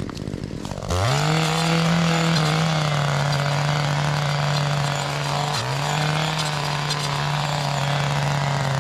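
Small two-stroke engine of a handheld clearing tool revving up sharply about a second in, then held at full throttle with a steady high drone, dipping briefly once past the middle before picking straight back up.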